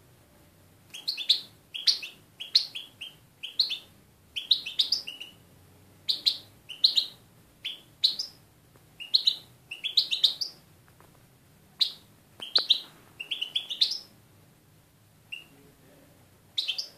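European goldfinch singing in short bursts of high chirping notes, a new phrase about every half second, with a couple of brief pauses.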